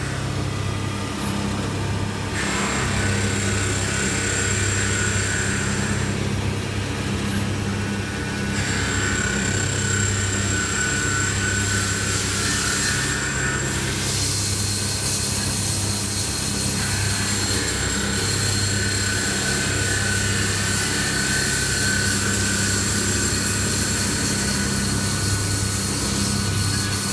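Prototype CNC lathe running, its spindle turning a metal bar while the tool cuts it. A steady low hum pulses, and a high hiss and whine switch on and off several times as the cutting passes change.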